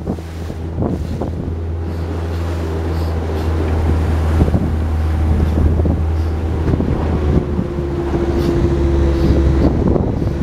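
Motorboat engine running with a steady low drone while the boat heads through a choppy sea, with wind rushing over the microphone and water splashing around the hull.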